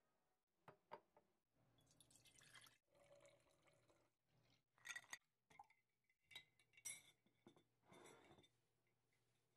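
Faint kitchen sounds of juice being poured from a plastic bottle into a glass jar, with a few sharp clinks against the glass.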